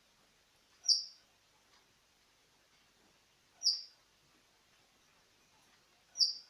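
Siberian thrush giving three short, high-pitched call notes, spaced about two and a half to three seconds apart.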